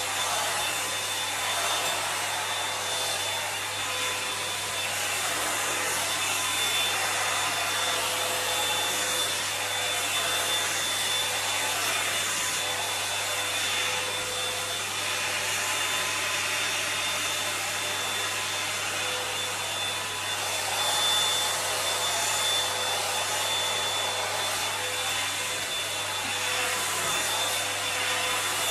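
Toni & Guy hot-air volumiser brush running steadily as it is worked through long hair: a continuous rush of blown air with a steady motor whine.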